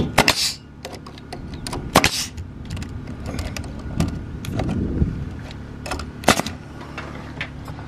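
Cordless nail gun firing nails into cypress soffit boards: several sharp cracks about a second or two apart.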